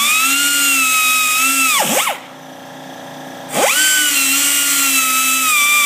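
Air grinder with a track drill bit boring through a rubber snowmobile track, running at a high whine in two runs of about two and a half seconds with a short pause between. Each run ends with the pitch falling quickly as the tool stops, over a steady hiss.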